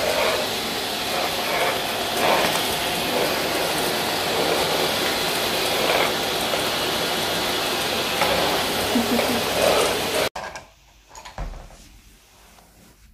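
Vacuum cleaner running steadily on a tiled floor. It cuts off suddenly about ten seconds in, leaving quiet room sound with a few faint knocks.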